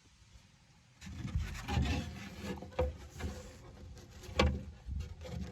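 Wooden dresser drawers rubbing and knocking as they are handled and pulled out, a string of irregular wooden knocks and scrapes with one sharp knock near the end.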